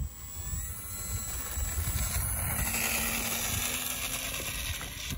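A radio-controlled model plane's motor and propeller running, heard as a broad whirring hiss with faint steady tones, building over about two seconds and holding before it eases near the end. Low wind rumble on the phone's microphone sits underneath.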